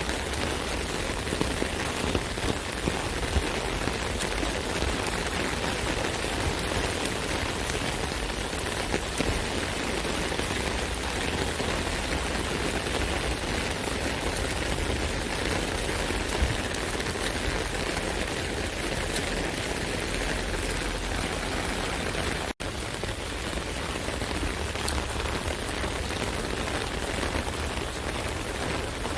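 Steady rain falling on an umbrella: a dense, even patter of drops with scattered louder taps. The sound cuts out for an instant about two-thirds of the way through.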